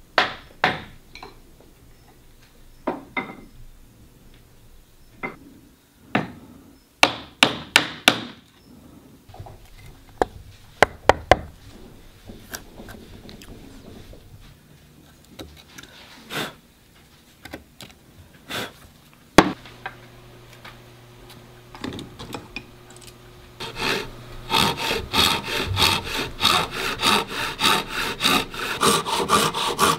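Wooden mallet striking a chisel into a pine block: separate sharp knocks, some in quick runs of four or five. Near the end, a hand saw cutting wood in fast, even strokes, about four a second.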